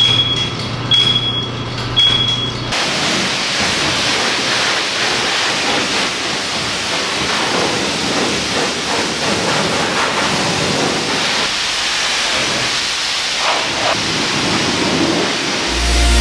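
Self-serve car wash pressure wand spraying water onto a truck, a loud steady hiss of spray that starts about three seconds in and keeps on. Before the spray starts, a low hum and three short high beeps.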